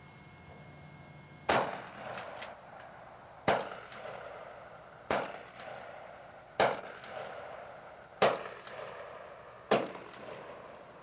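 Remington 870 12-gauge pump-action shotgun firing 1¾-inch short shells: six shots about a second and a half apart. The slide is racked between shots, heard as two quick clicks after each one.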